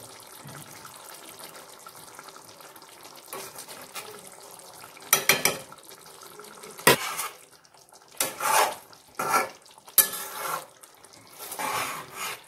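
Curry simmering quietly in a kadai, then from about five seconds in a metal ladle stirring and scraping against the pan in a series of loud, irregular strokes.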